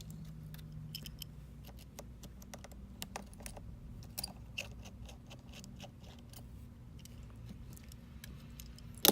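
Small, light clicks and ticks of a precision screwdriver and small metal tools working the tiny screws and metal bracket of a smartphone's insides, with a sharp louder click near the end, over a low steady hum.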